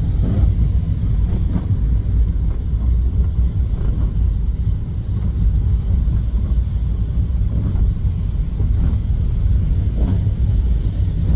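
Steady low rumble of a car's engine and road noise from inside the moving car's cabin.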